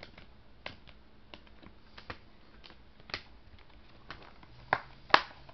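Scattered light clicks and taps of a hand handling an open plastic DVD case and its discs, with two louder clacks near the end.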